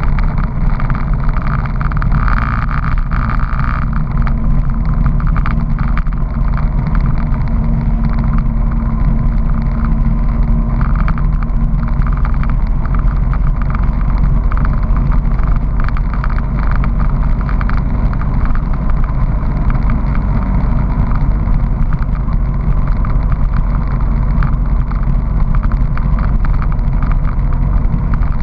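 Honda PC800 Pacific Coast motorcycle cruising at a steady speed, its V-twin engine running evenly with no change in revs.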